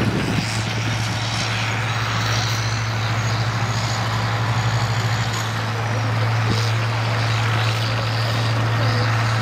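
Heavy engine of vintage earthmoving machinery running steadily with a deep drone. For a few seconds in the middle the drone pulses in an even rhythm, then it evens out again.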